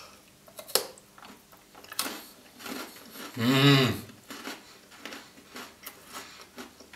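Close-up chewing of a custard-dipped Tim Tam chocolate biscuit: scattered crisp crunches and mouth clicks. About halfway through, a short hummed "mmm" of enjoyment.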